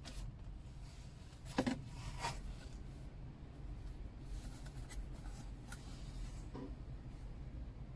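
Paperboard cupcake box being handled: card flaps rubbing and folding shut, with a sharp paper crackle about one and a half seconds in, another soon after, and a few light ticks later as the card handle is lifted.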